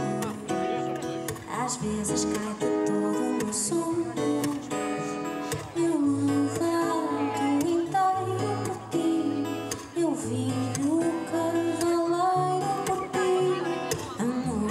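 Live band playing a ballad: strummed acoustic guitars and bass notes, with a woman's sung melody coming in about six seconds in.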